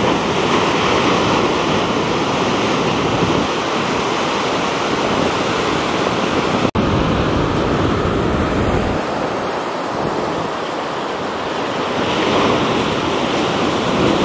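Ocean surf breaking and washing, with wind rumbling on the microphone. The sound cuts out for an instant about halfway through.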